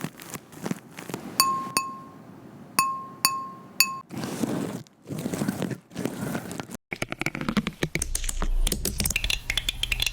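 Dubbed ASMR trigger sounds: five clear ringing glass clinks, then several soft brushing swishes, then a run of fast light tapping and crackling.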